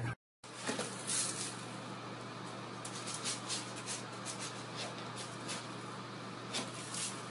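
Cat digging in a plastic litter tray: short, irregular scrapes and rasps of litter, over a steady low hum.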